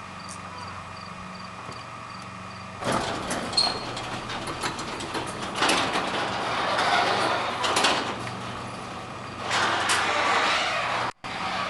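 Craftsman 3/4 hp chain-drive garage door opener raising the door. About three seconds in, the motor and chain start running with the door clattering and rattling, which goes on for about eight seconds before cutting off near the end.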